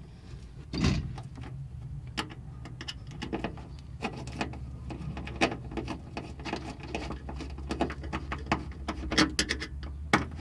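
Hands twisting a bare wire end around a screw on a vehicle's sheet-metal body to make a ground connection: irregular small clicks and scrapes of wire and metal, with a louder knock about a second in, over a low steady hum.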